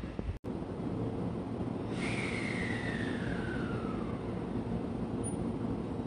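JR Central 313 series electric train creeping into a station platform with a low, steady running rumble. About two seconds in, a whine starts and falls smoothly in pitch over about two seconds as the train slows.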